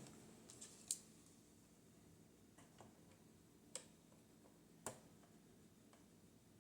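Near silence broken by a few faint, sharp clicks, three clear ones about a second apart or more, from small plastic model parts being handled and test-fitted.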